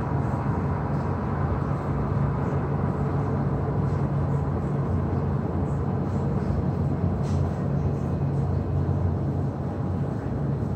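Steady low rumble and hum of jet airliners' engines on an airport apron at night, constant throughout with no sudden changes.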